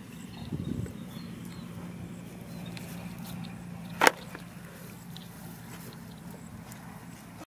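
Steps and rustling in dry grass stubble, then a single sharp knock about four seconds in as a plastic bucket is set down on the ground, over a steady low hum.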